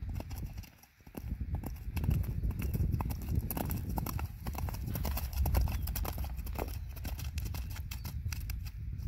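Hooves of a sorrel quarter pony mare trotting on a wet dirt road, a quick, steady run of clops. A brief lull about a second in.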